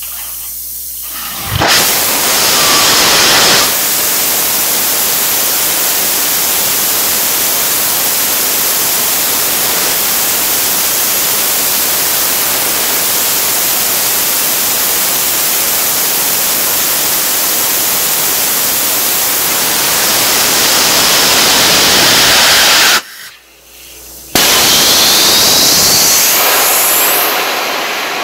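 Hydrogen peroxide rocket catalyst pack firing: a loud, steady hiss of steam jetting from the nozzle, starting about a second and a half in. It cuts out for about a second after some twenty seconds, comes back, and tails off near the end with a rising whistle.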